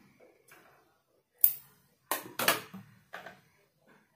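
Handling noise from a stitched blouse sleeve being moved about on the sewing table: a few sharp clicks and scrapes, the loudest about one and a half seconds in and a cluster around two and a half seconds.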